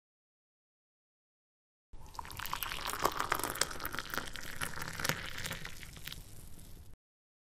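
Dead silence, then about two seconds in a river rushing and splashing over rocks in rapids, full of crackling spatter, which cuts off suddenly about five seconds later.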